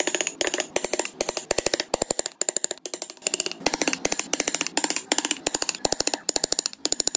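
A small hammer rapidly tapping a narrow carving gouge into wood, about ten light strikes a second in quick runs with brief pauses, as the gouge cuts out wheel spokes.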